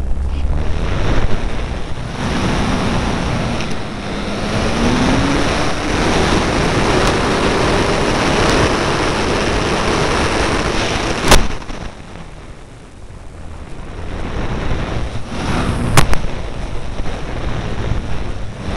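Wind rushing over the microphone of a keychain camera riding on an E-flite Apprentice electric RC plane in flight, with a faint motor drone sliding up in pitch in the first few seconds. Two sharp clicks stand out about four and a half seconds apart, and the rush drops away for a couple of seconds just after the first.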